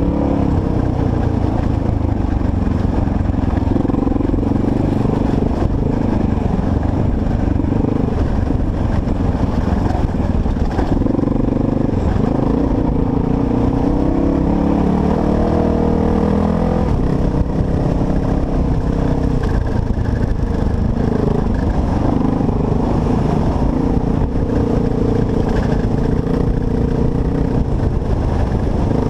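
Honda XR650L's single-cylinder four-stroke engine running under way on a dirt trail, its pitch rising and falling with the throttle, most noticeably about midway.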